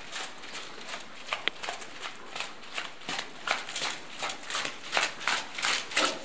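Ridden horse's hooves striking wet sand arena footing: a steady run of soft hoofbeats, several a second.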